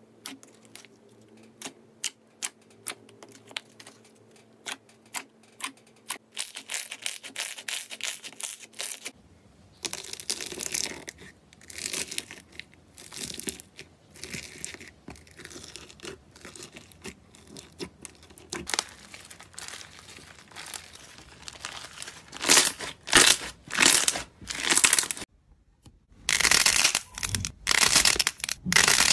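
Hands pressing, poking and squeezing slime: first a quick series of sharp sticky pops and clicks, then denser crackling and crunching from a bead-filled slime, and louder sticky tearing as a dark slime is pulled apart.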